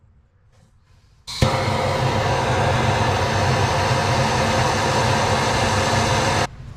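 Handheld gas torch flame running with a steady, loud hiss. It cuts in suddenly just over a second in and stops abruptly near the end.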